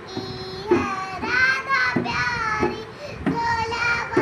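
A young girl singing a song unaccompanied, her high child's voice holding short sustained notes between breaths.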